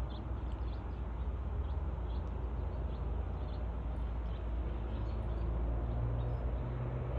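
Small songbirds chirping in short, high notes repeated every half second or so, over a steady low rumble.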